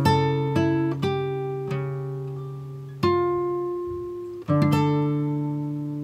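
Background music on acoustic guitar: slow plucked chords and single notes, each left to ring and fade before the next.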